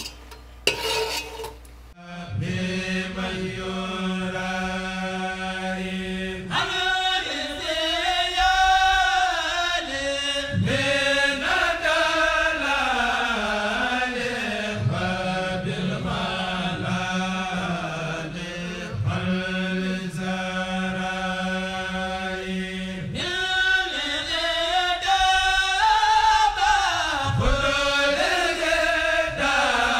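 Background music: a chanted vocal line with a sustained drone under it, starting about two seconds in. Before it comes a brief clatter of a metal skimmer against the pot.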